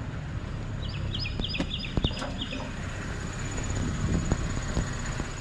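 A bird calls a quick run of short, high chirps about a second in, over a steady low rumble, with a few light knocks scattered through.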